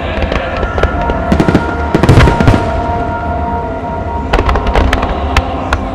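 Fireworks display: a rapid stream of sharp bangs and pops from bursting shells and ground-fired star mines, with one heavy, deep boom about two seconds in.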